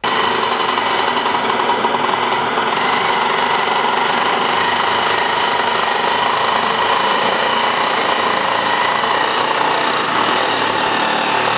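Hydraulic rock drill on the boom of a Sandvik DL321 underground drill rig, drilling into rock: a steady, loud percussive rattle with a high whine running through it.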